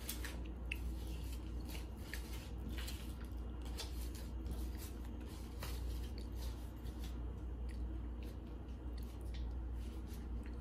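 Scattered soft clicks and crunches of eating crispy fried squid with wooden chopsticks from a plastic takeout box, over a steady low hum.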